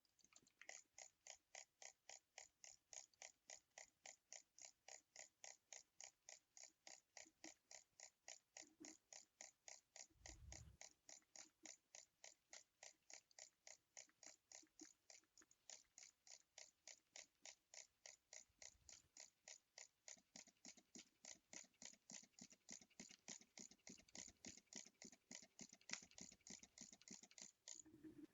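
A steady, even run of sharp clicks, about three a second, with a single low thud about ten seconds in.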